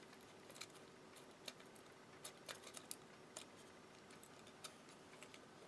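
Near silence with faint, scattered small clicks as the partly disassembled Panasonic RQ-NX10 cassette walkman mechanism is handled in the fingers.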